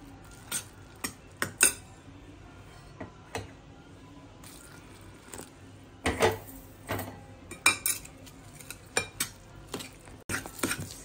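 Steel ladle scraping and clinking against a stainless steel bowl while stirring wheat flour into jaggery syrup and water, in irregular strokes. The strokes come sparsely at first and grow busier about halfway through.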